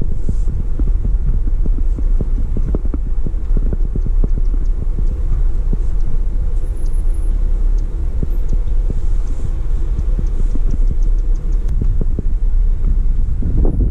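Wind buffeting the microphone: a steady, loud low rumble broken by gusty thumps, with a stronger gust near the end.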